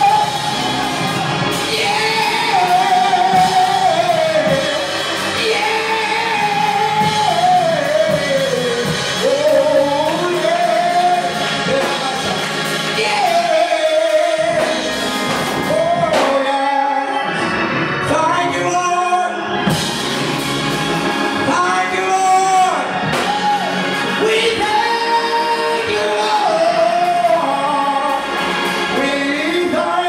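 A solo voice singing gospel into a microphone through the church's sound system, with long held notes that slide up and down over music.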